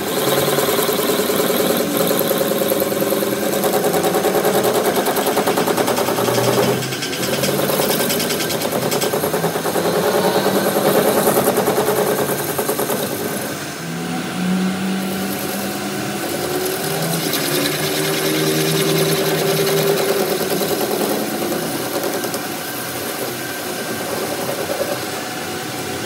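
Metal lathe turning a steel trunnion bushing with a cutting tool against it: a steady machine hum with the scraping of the cut, and pitched tones that drift up and down now and then.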